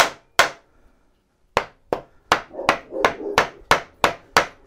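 Hand hammer striking the front of a Reliant 700cc engine to knock loose its water pump, which is stuck on corroded studs. Two strikes, a pause of about a second, then a steady run of about ten blows at roughly three a second.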